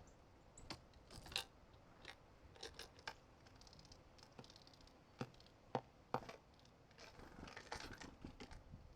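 Faint, scattered sharp taps and scratches of small birds pecking and hopping on a seed feeder, with a soft rustle near the end.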